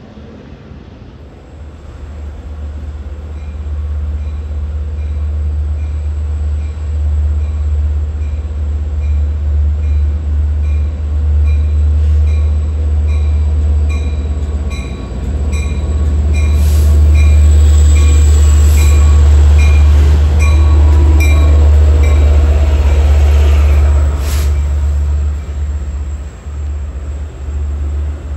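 Bilevel commuter train pulling in alongside the platform and coming to a stop: a deep rumble grows as it approaches while a bell rings about twice a second. The loudest part is a rush of wheels and brakes as the cars draw past, which eases off near the end.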